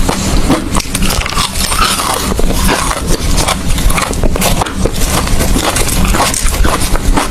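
Close-up crunching of hard ice being bitten and chewed, a dense, irregular run of sharp cracks and crackles.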